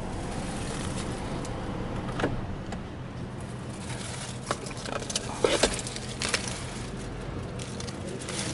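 Handling sounds in a pickup cabin: a few sharp clicks and light knocks, loudest about five and a half seconds in, and a key fob with its keys jangling, over a steady low hum.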